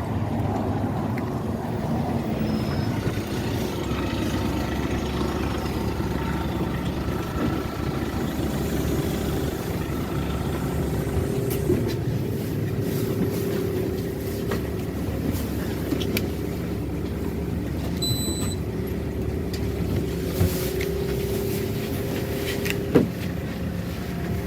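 Inside a LiAZ-6213.65 city bus under way: a steady engine drone and road rumble. About 18 seconds in there is a short electronic beep, and a few knocks and rattles come through, the sharpest near the end.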